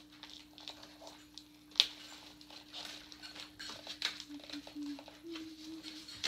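Light rustling, scraping and small ticks of cardboard packaging being worked loose from the base of a jumping spider Halloween prop, with one sharp click a little under two seconds in. A faint steady hum runs underneath.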